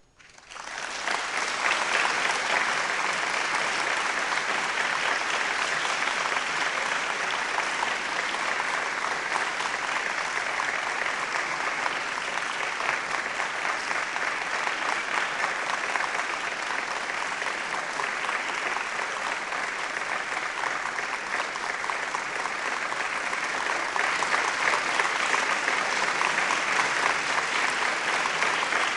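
Audience applause: many people clapping in a dense, steady wash that rises quickly from silence at the start and swells a little louder near the end.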